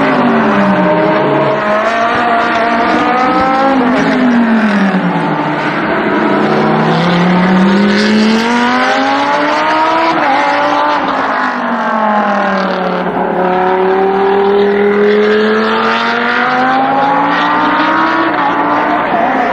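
GT race car engines running hard on track, their pitch falling under braking and climbing again under acceleration several times over, with more than one car heard at once.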